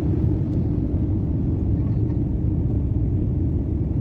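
Steady low roar of a jet airliner's engines and airflow heard inside the passenger cabin as the plane climbs away after takeoff.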